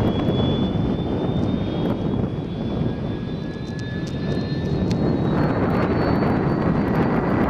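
Aérospatiale AS 332 Super Puma helicopter running on the ground with its rotors turning: a steady rushing noise with a high turbine whine that slowly rises in pitch.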